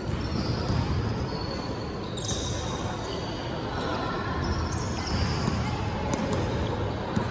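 Basketball game sounds: a ball bouncing on the court and sneakers squeaking on the floor as players run, with voices in the background.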